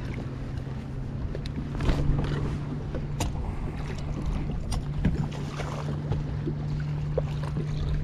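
A hooked largemouth bass being fought to the side of a fishing boat: a steady low hum from the boat, with several sharp splashes and knocks.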